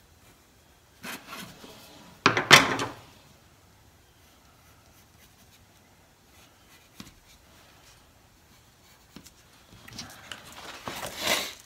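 Handling sounds on a wooden workbench: a sharp knock about two and a half seconds in, as a plastic speed square is set down on the bench top, then rustling and knocks near the end.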